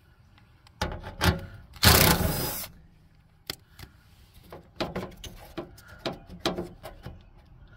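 Hand handling a Craftsman LT3000 lawn tractor's gear shift lever in its plastic shift plate: irregular clicks and knocks of plastic and metal. A loud scraping rustle lasting under a second comes about two seconds in.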